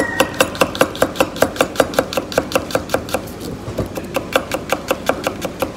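Kitchen knife slicing garlic cloves thin on a cutting board: quick, even taps of the blade on the board, about six a second.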